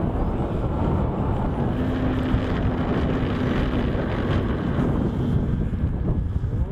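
Heavy wind buffeting the microphone, with the steady hum of a model aircraft's motor and propeller under power during its takeoff run; the hum sets in about one and a half seconds in and fades a few seconds later.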